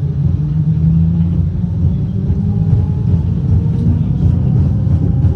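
Berlin S-Bahn class 485 train heard from inside while running, a loud steady low rumble with a faint motor hum. From about four seconds in, faint short clicks come through, the start of the rattling this train is known for.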